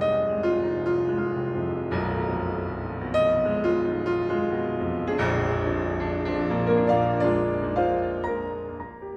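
Instrumental piano music: notes and chords struck one after another and left to ring.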